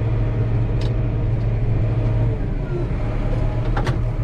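Tractor engine running steadily while pulling a plough, a constant low drone. A sharp click comes about a second in and another near the end.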